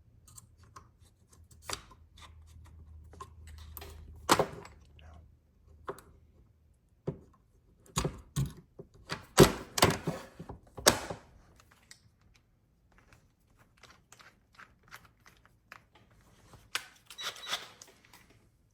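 Tools and small parts being handled on a workbench: scattered clicks and knocks, with a run of louder knocks about eight to eleven seconds in.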